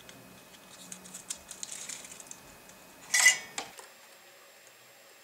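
Light clicks and taps of hands handling a circuit board and soldering tools, then one louder, brief metallic scraping clatter about three seconds in.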